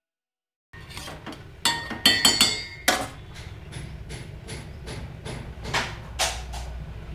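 Metal spoon knocking and clinking against a steel pot: a cluster of loud, ringing strikes about two seconds in, then lighter taps, over a low steady rumble.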